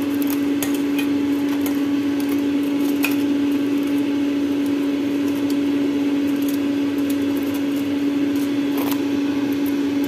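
A kitchen appliance's fan motor running with a steady hum, with scattered light clicks as tongs turn chicken wings in a foil-lined air fryer basket.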